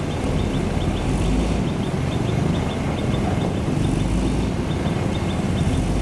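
Motor grader's diesel engine running under load, a steady low rumble that swells and eases every second or two. A faint, rapid high ticking, about four ticks a second, runs over it.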